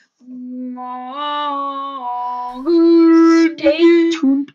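A voice singing a wordless tune in long held notes, stepping up in pitch about a second in, dropping back at about two seconds, then rising higher and holding near the end.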